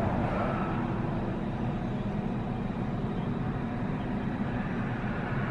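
Car driving at a steady speed: a continuous low rumble of road and engine noise, with no sudden events.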